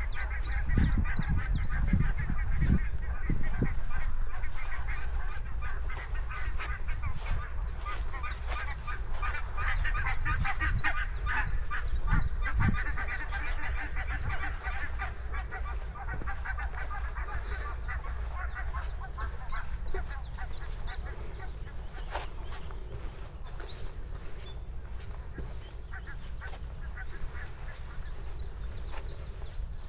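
Geese honking, many calls overlapping in a dense chatter that thins out toward the end, over a steady low rumble. Faint high chirps from a small bird come in briefly in the second half.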